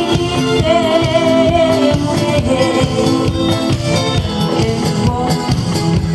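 A singer singing over an instrumental accompaniment with a steady beat, holding a note with vibrato about a second in.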